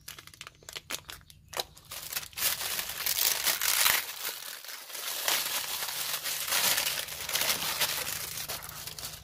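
Clear plastic bag crinkling and rustling in the hands as a cylinder block is unwrapped. There are a few sharp crackles at first, then dense, continuous rustling from about two and a half seconds in.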